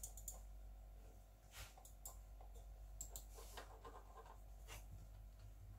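Near silence with a few faint, scattered clicks and light rubbing as a gaming mouse is handled and shifted on the desk.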